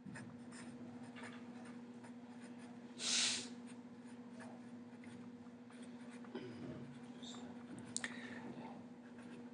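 Felt-tip Sharpie marker writing on paper: faint, uneven scratchy strokes as words are written, with a brief louder hiss about three seconds in.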